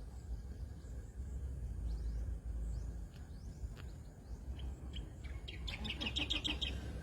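Wild birds calling: scattered thin, high chirps that sweep downward, then near the end a fast run of repeated notes lasting about a second. A low rumble runs underneath.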